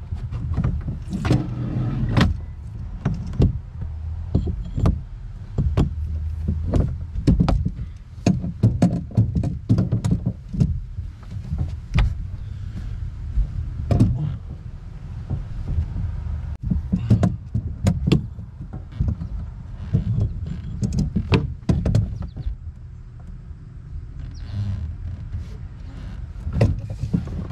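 Irregular knocks, clicks and scraping as a boat steering cable is pushed and worked through the boat's hull, over a steady low rumble.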